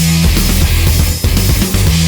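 Loud, distorted heavy rock music with electric guitars, a steady bass line and drums.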